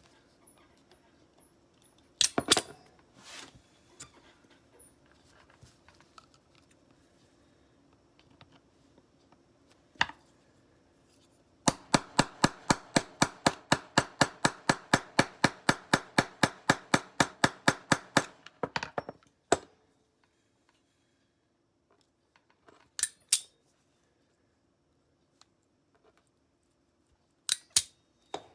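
Sharp metal-on-metal taps, as from a small hammer working on the knife: a few single knocks, then a fast, even run of about four strikes a second for some six seconds, then a few more scattered knocks.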